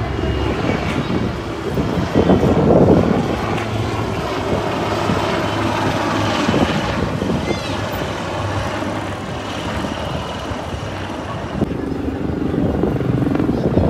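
Helicopters flying overhead, a steady drone of rotors and engines.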